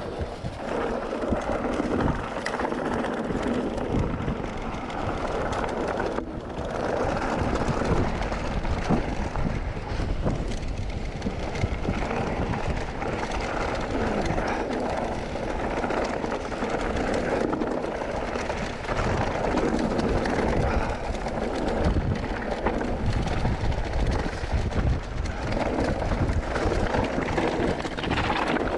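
Mountain bike rolling fast down a rough track strewn with loose stones: steady tyre rumble with dense rattling and clatter from the bike over the rocks.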